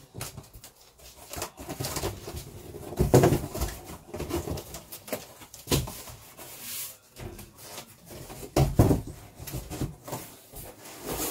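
Flattened cardboard moving box being unfolded and folded into shape: irregular scraping, flapping and knocking of stiff cardboard, with the loudest knocks about three seconds in and again near nine seconds.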